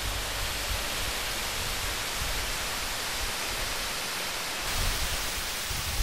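Flowing water of a rocky stream, a steady dense rushing hiss. Low irregular thumps join it in the last second or so.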